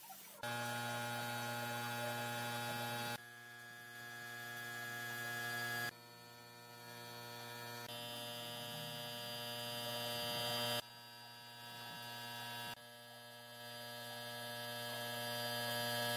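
A steady electric hum with many evenly spaced overtones. It jumps abruptly every two to three seconds and grows slightly louder across each stretch. A hiss rides above it in the later stretches.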